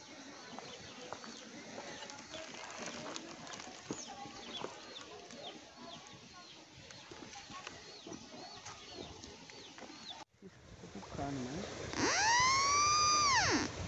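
Birds chirping faintly in short falling calls. Near the end a homemade pulse-induction metal detector sounds a loud tone that rises then falls in pitch for under two seconds as its coil passes over a metal target in the ground.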